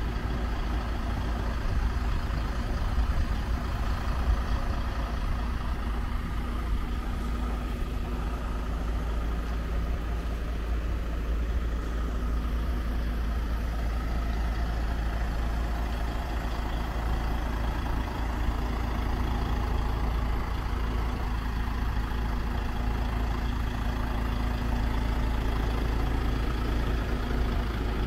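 A heavy engine idling steadily, a constant low hum that neither rises nor falls.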